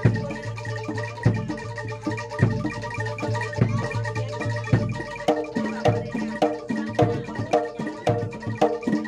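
Live Javanese gamelan music: metallophones ringing over heavy drum strokes about every second and a quarter, with a run of repeated pitched strokes, about two a second, coming in a little past halfway.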